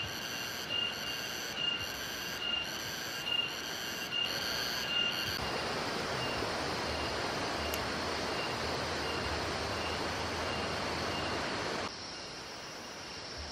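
Outdoor forest sound: a high-pitched call pulses about once a second for the first five seconds, then gives way to a steady hiss that gets quieter near the end.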